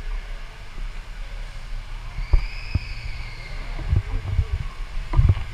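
Water rushing and sloshing around inflatable tubes drifting through a water-slide channel, a steady low rumble with a few dull knocks as the tubes bump the channel wall.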